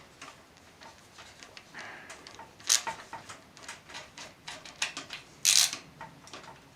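Small clicks, taps and scrapes of computer parts and cables being handled inside a metal PC case, with a sharper knock a little under three seconds in and a short louder scrape about five and a half seconds in.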